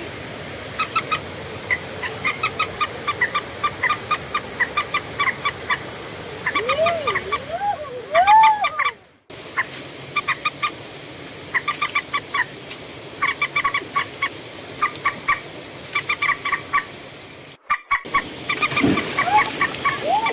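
Chicken clucking in rapid short notes, with a few longer rising-and-falling squawks about seven to eight seconds in. The sound cuts out briefly twice.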